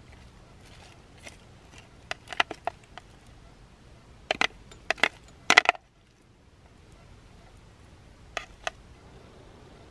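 Handling noise: three short clusters of sharp crackles and clicks, the loudest about halfway through, as of something being crushed or crumpled by hand.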